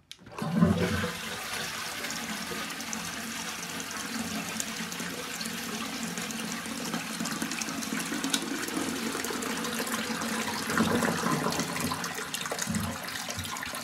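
Armitage Shanks low-level toilet cistern flushed by its lever: a clunk, then a sudden rush of water through the siphon that settles into a steady water noise as the float valve refills the cistern.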